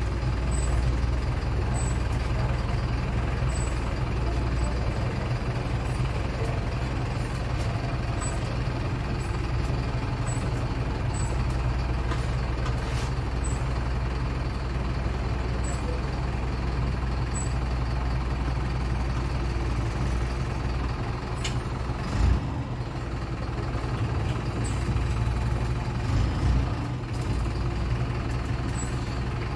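City bus engine running steadily, heard from inside the cabin at the front, with a few short thumps about 22 seconds in and again around 26 seconds.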